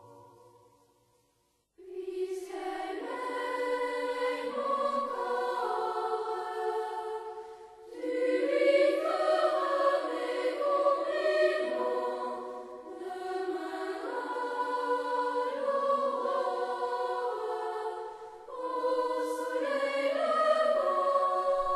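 Choir singing a traditional French folk song from the Loire. A brief silence about a second in, then the singing starts again and goes on in phrases with short breaks between them.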